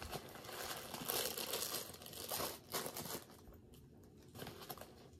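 Plastic bags and packaging crinkling and rustling as they are handled, with several louder crinkles in the first three seconds and fainter rustling after.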